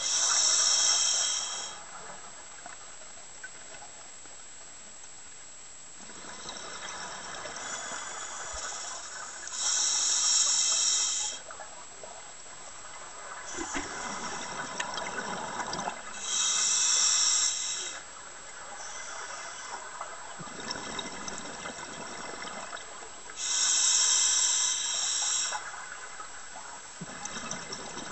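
A scuba diver breathing through a regulator underwater: four breaths about seven seconds apart, each with a short loud hiss and a longer, softer rush of bubbles.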